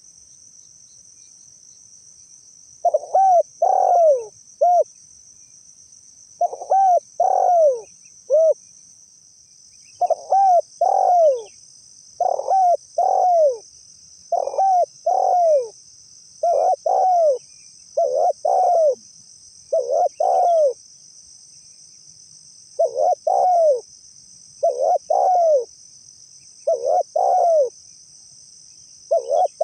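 Spotted dove (tekukur) cooing. It gives repeated phrases of two or three low coos, starting about three seconds in and coming about every two seconds, with a short pause about two-thirds of the way through.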